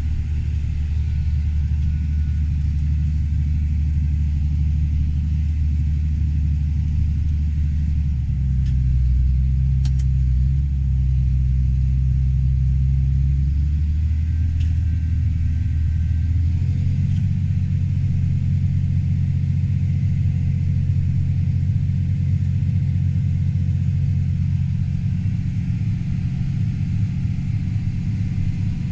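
Diesel engine of heavy harvest machinery running steadily, a low rumble. Its pitch shifts about 8 seconds in and again about 17 seconds in.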